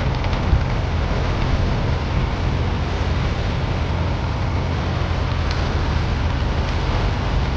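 Tractor engine running steadily, with wind buffeting the microphone.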